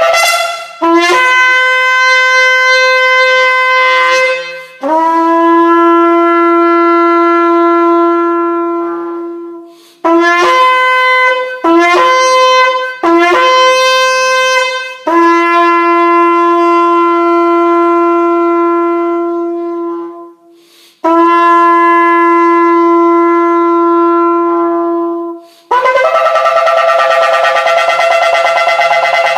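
Shofar being blown in a series of blasts. The long notes often step up in pitch from a low start, and a cluster of short blasts comes about ten to fifteen seconds in. A rougher, quavering blast comes near the end.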